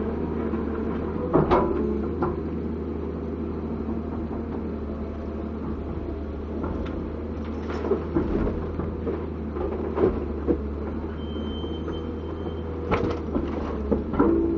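Komatsu PC200-7 hydraulic excavator's diesel engine running steadily, with a series of sharp metallic knocks and clanks at irregular intervals and a brief thin high whine near the middle.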